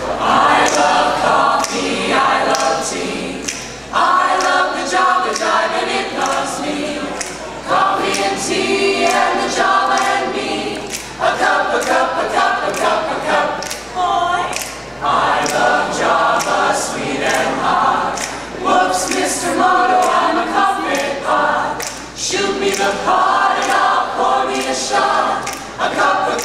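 High school mixed choir singing a cappella in close harmony, in short phrases with brief breaks between them.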